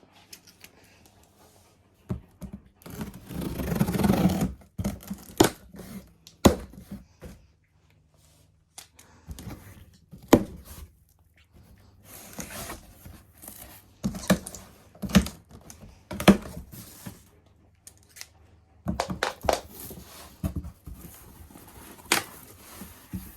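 Cardboard box and packaging being opened and handled: tearing and rustling of cardboard and plastic, with irregular sharp clicks and knocks as vacuum cleaner parts are lifted out.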